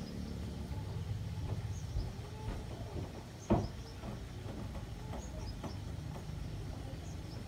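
Outdoor ambience: a steady low rumble with faint high chirps recurring every second or so, broken by one sharp knock about three and a half seconds in.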